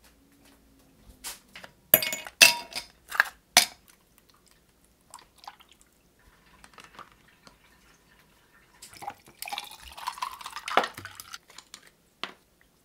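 A handful of sharp clinks of ice cubes dropping into a glass, then water trickling from a plastic bottle into a plastic ice cube tray. A busier stretch of pouring and clinking follows near the end, with one last clink.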